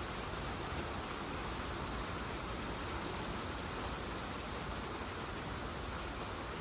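Heavy rain falling steadily, a constant hiss of rain hitting surfaces with scattered drop ticks.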